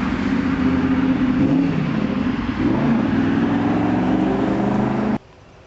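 Car engine running and accelerating, its pitch rising about halfway through, then cutting off suddenly near the end.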